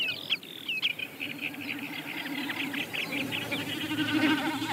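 Common snipe drumming in its spring display dive: a fast pulsing, goat-like bleating hum made by its outer tail feathers, starting about a second in and swelling louder near the end. Thin high calls of other birds run over it.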